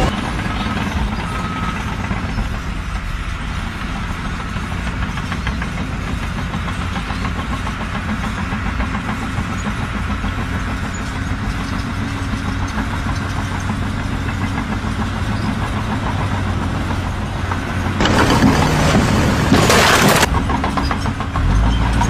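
A machine's engine running steadily, with a louder noisy stretch about eighteen seconds in.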